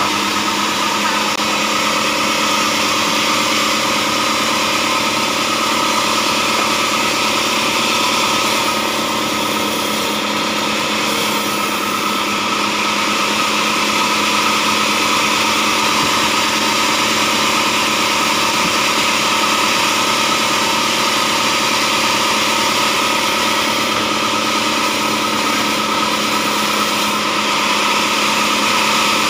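Diesel engine driving a band sawmill, running steadily at a constant speed, while the band saw blade runs through blocks of hard acacia wood fed by hand.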